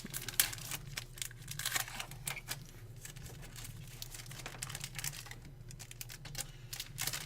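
Trading card pack wrapper crinkling and tearing as it is opened by hand, with the cards inside handled: many short, irregular crackles and clicks.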